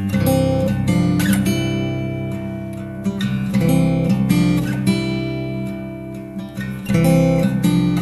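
Background music: an acoustic guitar strumming chords.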